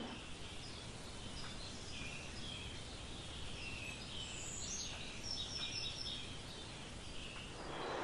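Quiet natural ambience: small birds call in short chirps, most of them in the middle seconds, over a low steady hiss.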